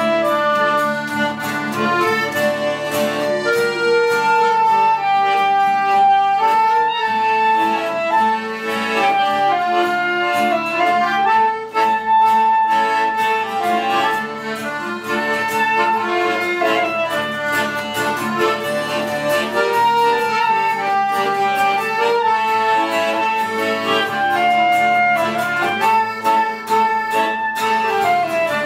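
A klezmer trio playing live: clarinet, accordion and strummed acoustic guitar play together without a break.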